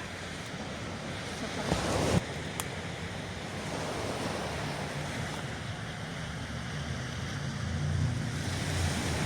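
Sea surf washing onto the shore, swelling about two seconds in and again near the end, with wind rumbling on the microphone.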